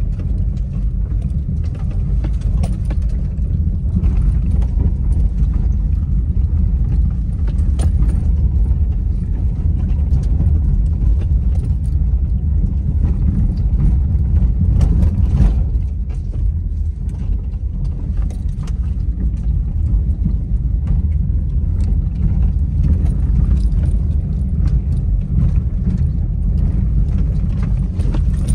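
Steady low rumble of a car driving over a rough dirt road, heard from inside the cabin, with scattered small knocks and rattles.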